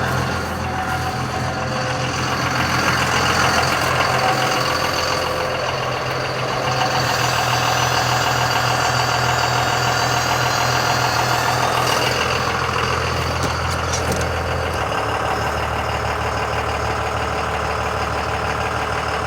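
A vehicle engine idling steadily, with a slight change in its low hum about fifteen seconds in.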